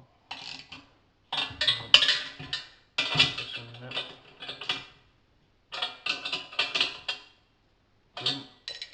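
Ratchet socket wrench clicking in several short spells as the nuts on an exhaust blow kit clamp are wound along their bolts.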